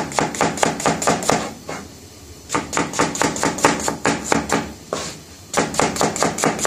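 Kitchen knife chopping onions on a cutting board: quick, sharp strikes about five or six a second, in three runs with two short pauses between them.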